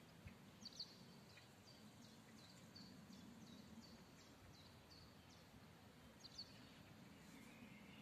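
Near silence: faint outdoor ambience with a low hum, and a small bird chirping high and repeatedly, about two chirps a second, falling silent shortly before the end.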